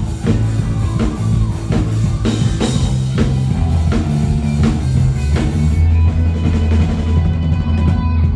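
Live rock band playing an instrumental passage: drum kit, electric bass and electric guitar, loud and full, with no vocals.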